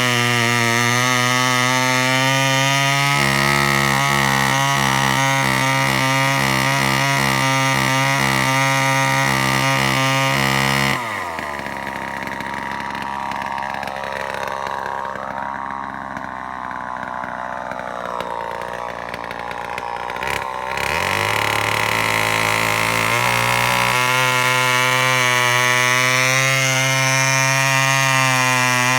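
Sears Sportster two-stroke chainsaw engine running at high speed, dropping back about 11 seconds in to a lower, wavering speed, then revving back up about 20 seconds in and holding high again.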